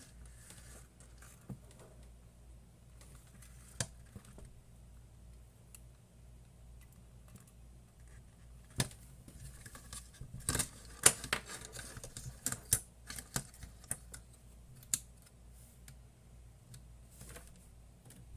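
Scattered sharp clicks and small rattles of hands handling a circuit board and its power supply test leads, sparse at first and then a busy run of clicks a little past the middle, over a faint steady low hum.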